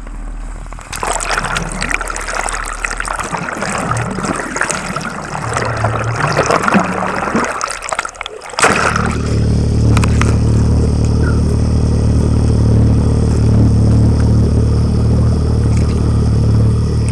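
Water splashing and rushing over a towed camera at the surface for about eight seconds, then, once the camera goes under, the boat's outboard motor and spinning propeller heard underwater as a steady low drone.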